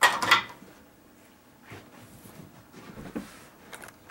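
A few sharp plastic knocks in the first half second, then fainter scattered knocks and shuffling: a dry-erase marker being set down in a whiteboard's tray.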